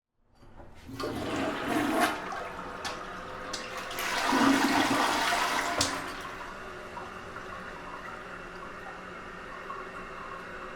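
Toilet flushing: a rush of water starts about a second in, surges loudest from about four to six seconds, then settles into a steady, quieter run of water.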